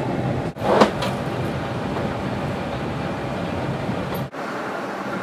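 Steady rushing cabin noise inside a Boeing 747-400 at the gate, with the air conditioning running. About a second in there is one short, loud bump-like noise. The sound drops out briefly just after half a second and again near the end.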